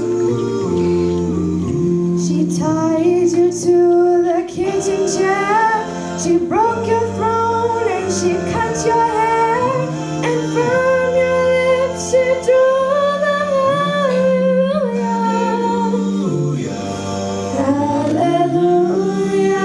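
Girls singing a song through handheld microphones over a music track with sustained low notes that change every second or two.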